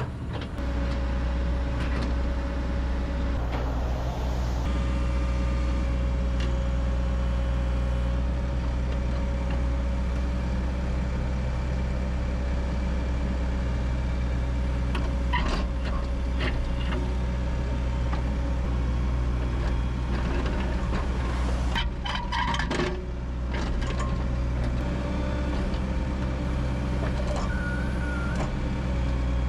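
Excavator diesel engine running steadily under load while working its hydraulics to pick up a boulder, with a few sharp knocks about halfway through and again after about 22 seconds.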